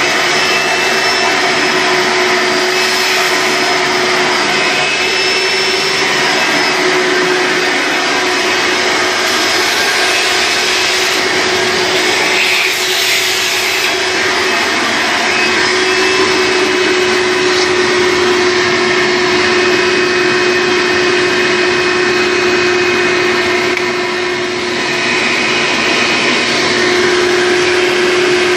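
1998 Hoover Runabout U4258 upright vacuum cleaner running with its hose and tools in use: a steady motor whine over rushing air, the sound shifting briefly about halfway through and dipping slightly near the end.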